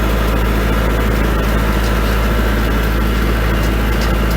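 Kubota L4701 tractor's diesel engine running at a steady pace while driving, a constant low drone with a faint steady high whine above it.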